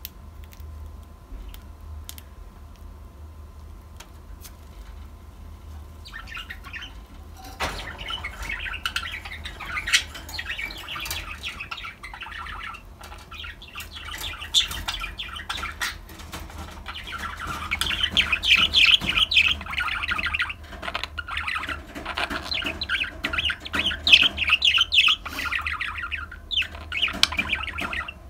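Budgerigars chattering and warbling in fast, continuous runs. The chatter starts about six seconds in and grows louder toward the end. Before it there is only a low steady hum and a few faint ticks.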